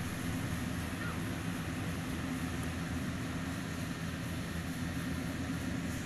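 Yanmar combine rice harvester working in the middle distance: its engine gives a steady drone with an even low hum.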